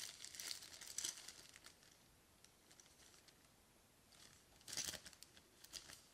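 Thin clear plastic packaging bag crinkling as it is handled: a run of crinkles over the first second and a half, then a louder crinkle a little under five seconds in and a short one near the end.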